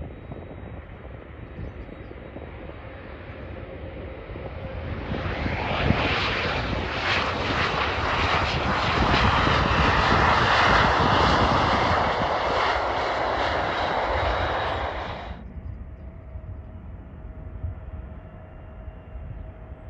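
Turbofan engines of a Bombardier CRJ regional jet on its takeoff roll: the jet noise builds over several seconds to a loud rush, then cuts off abruptly about fifteen seconds in. After the cut, the quieter, steady engine noise of a twin-engine widebody jet approaching to land, with a faint steady whine.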